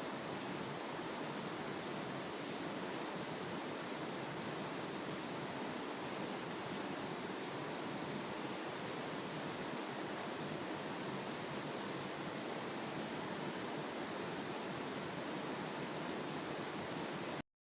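Steady, even hiss of background noise with nothing else in it, cutting off suddenly near the end.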